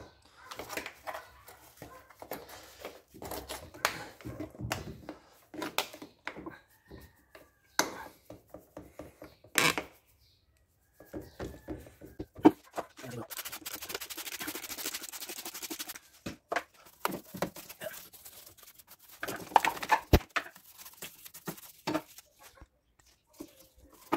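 Engine-bay cleaning by hand: rags rustling and rubbing over engine parts, with scattered clicks and knocks as the parts are handled. Near the middle comes a few seconds of steady hiss.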